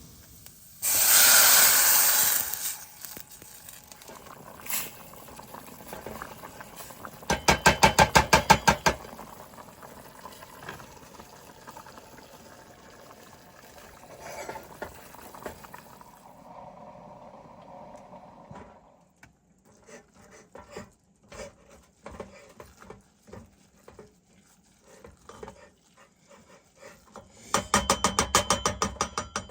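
Rice browning in a frying pan and being stirred with a utensil: sizzling with irregular scraping and tapping. There is a loud hiss about a second in and two loud, rapid rattling bursts, one about a quarter of the way in and one near the end.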